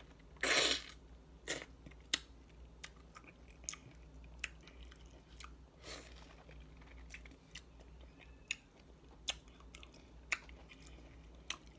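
A person eating ripe mango close to the microphone: wet chewing and lip smacks with scattered mouth clicks, and one louder mouth sound about half a second in.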